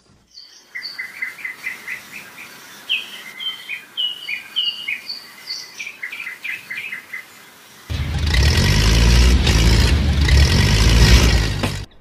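Small birds chirping in a quick series of short calls. About eight seconds in, a loud low rumbling noise cuts in and lasts about four seconds.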